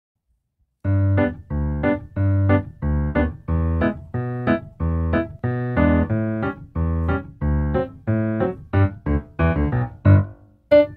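Background piano music with a bouncy, steady beat, starting about a second in.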